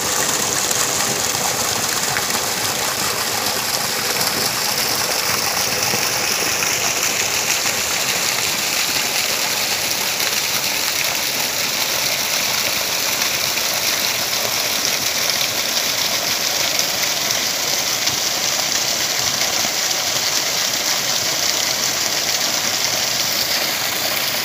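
Small waterfall pouring over rocks: a steady, unbroken rush of falling water.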